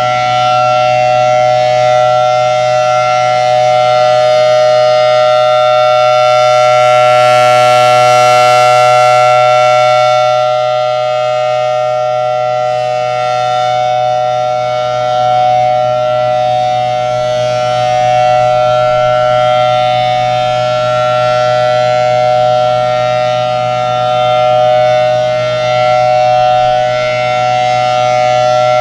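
FS&S Thunderbolt 1000T tornado siren sounding its steady Alert signal, a continuous two-note chord from its 5/6-port chopper. It swells louder and brighter for a few seconds about a quarter of the way in.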